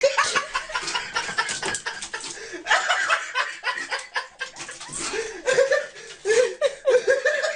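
People laughing in short repeated bursts.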